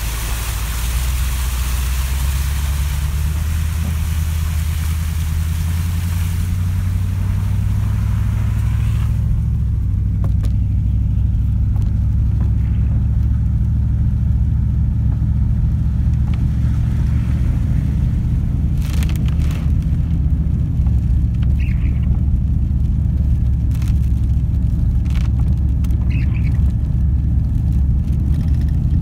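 Vehicle driving on a wet road, heard from inside the cab: a steady low engine and road rumble, with a hiss over it that stops about nine seconds in. A few faint clicks come later.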